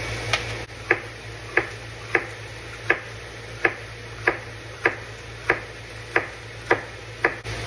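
Kitchen knife chopping celery on a cutting board: about a dozen sharp, evenly spaced strokes, roughly three every two seconds.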